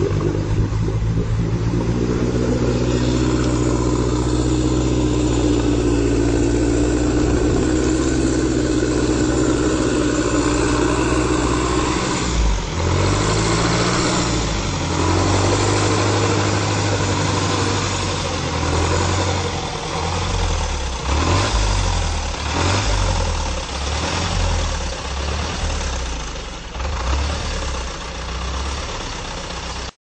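Engine of a 4x4 off-roader driving through a river deep enough to nearly submerge it, exhaust puffing smoke from a raised pipe. It runs steadily for about the first twelve seconds, then revs up and down again and again as it pushes through the water.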